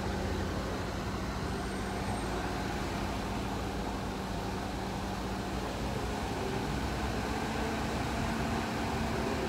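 City street traffic noise: a steady rumble of passing and idling cars with a low engine hum that shifts slightly higher about six seconds in.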